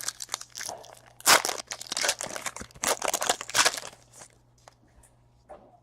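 A foil trading-card pack wrapper being torn open and crinkled: a dense run of crackling, loudest from about a second in until near four seconds.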